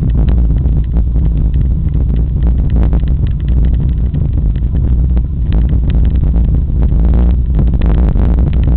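Mountain bike rattling and clattering over loose stones on a fast downhill, with a constant low wind rumble buffeting the microphone.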